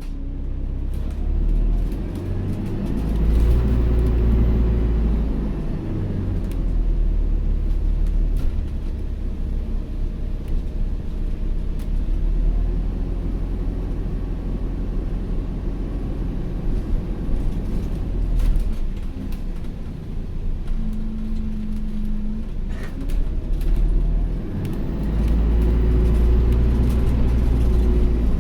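ADL Enviro400H City hybrid double-decker bus heard from on board, running with a steady low rumble. The rumble swells twice, early on and again near the end, as the bus pulls away, with a vacuum-cleaner-like ("Hoover") whine rising and falling over it. A short steady tone sounds a little after twenty seconds in.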